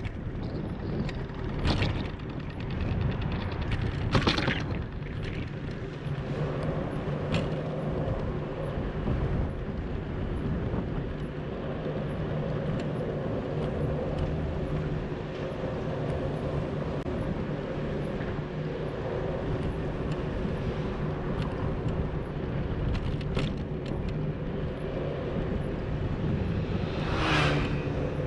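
A bicycle rolling along an asphalt cycle path: steady tyre and wind noise, with road traffic in the background. A few sharp knocks come in the first eight seconds, and a short, louder rushing sound comes near the end.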